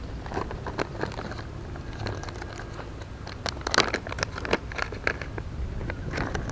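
Plastic crinkling and rustling with small clicks, as a soft-plastic lure packet is handled and a new soft plastic is taken out to rig on a jig head. The rustles come in uneven bursts and are busiest a little past halfway.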